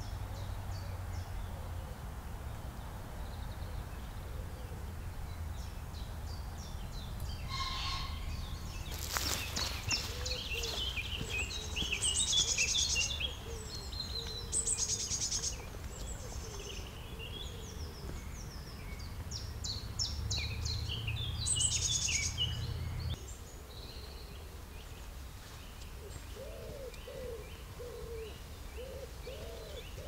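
Woodland songbirds singing, with many short chirps and trills through the middle, over a steady low rumble that drops away about two-thirds of the way through. Near the end a pigeon coos several times.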